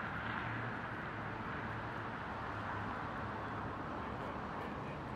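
Steady low engine hum of idling vehicles under an even hiss of street noise.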